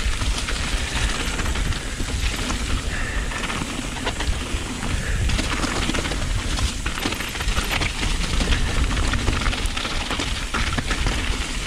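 Mountain bike descending a rough gravel and rock trail at speed: tyres crunching over loose stones and the bike rattling, with many short clicks and knocks over a constant wind rumble on the microphone.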